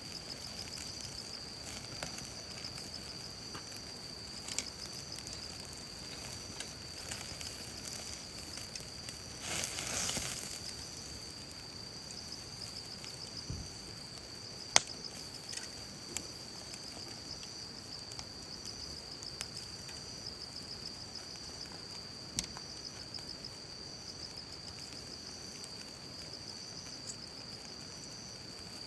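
Steady high insect trilling over an outdoor campfire grill. Sparse sharp crackles and pops from the fire, the sharpest about fifteen seconds in, and a brief hiss about ten seconds in.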